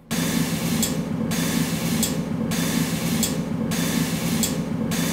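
Red-hot 1095 high-carbon steel knife blade being water-quenched: a steady hiss and bubbling, with a short sharp ping about every 1.2 s, four times. The ping is the sound of the blade cracking in the quench.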